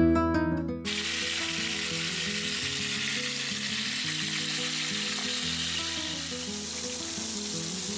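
Food frying in hot oil, sizzling steadily; the sizzle starts suddenly about a second in. Soft background music plays under it.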